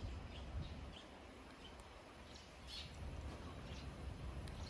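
Scattered faint bird chirps over a low, steady rumble.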